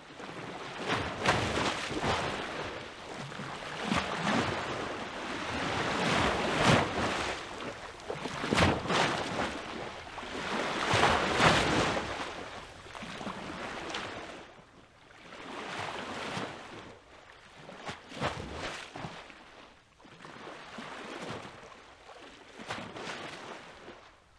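Water surging and washing over rocks at the shoreline in repeated swells every two to three seconds, stronger in the first half and softer after about fourteen seconds.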